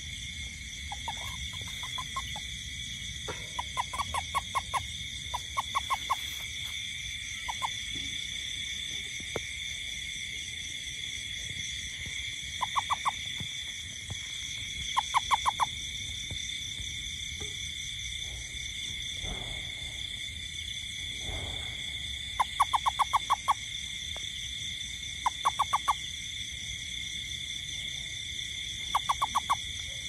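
Steady, high night-time insect trilling, with the loudest sound a short burst of rapid clicking pulses, an animal call, recurring in groups of about five to eight every few seconds.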